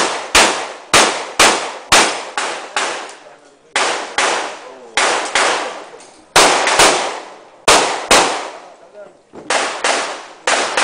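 Pistol shots fired in quick pairs, the two shots of each pair about half a second apart, with brief pauses between groups as the shooter moves between targets. Each shot rings out with a short echo.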